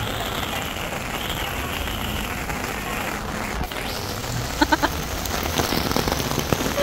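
Steady rain falling on an open paved plaza. About four and a half seconds in, three short, quick pitched calls from an unseen source sound close together.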